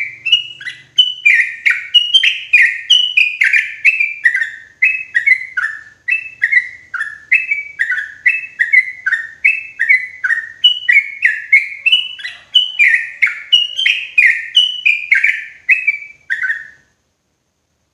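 Yellow-vented bulbul singing a long, loud run of quick notes that each slide sharply downward, about two a second, which stops a second before the end.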